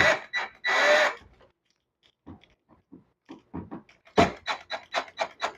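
Screwdriver tightening the screws of a plastic switch plate cover: a short scraping burst about a second in, then a run of short clicks and creaks that quickens to about four a second near the end.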